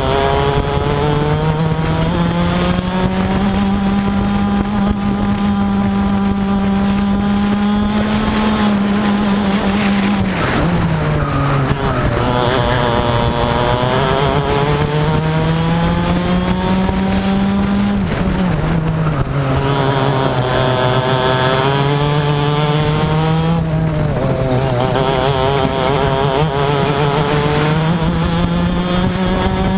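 Racing kart's two-stroke engine heard onboard at full throttle, its note climbing slowly as speed builds and dropping sharply twice, about a third and two thirds of the way through, as the kart brakes for corners.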